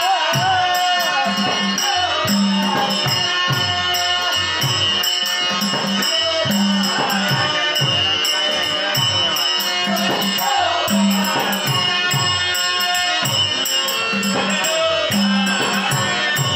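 Live folk-theatre music: a male voice sings a love song over a two-headed barrel drum played in a steady rhythm and small hand cymbals clinking along with it.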